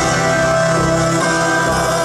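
Live rock band playing amplified through an arena PA, electric guitar to the fore over sustained chords and drums.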